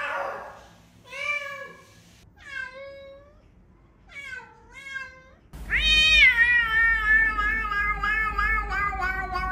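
Domestic cat meowing: four short meows, then a long drawn-out meow starting a little past halfway, with a low hum coming in alongside it.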